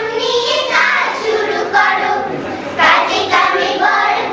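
A group of young children singing a Bengali song together in unison.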